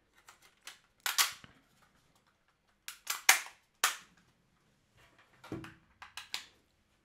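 A series of sharp plastic snaps and clicks, loudest about three seconds in, from a PS5 DualSense controller's removable front trim piece being pressed onto the shell and the controller handled. A cable is plugged into the controller near the end.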